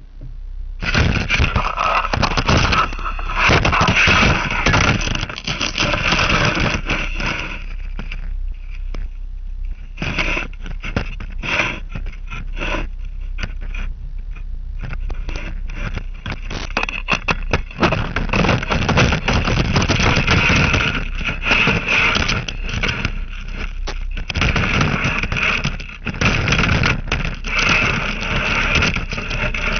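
Rough scraping and crackling full of sharp clicks. It starts about a second in, thins to scattered clicks for several seconds in the middle, then turns dense again.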